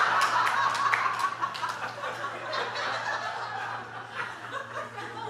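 A congregation laughing, the laughter slowly dying down.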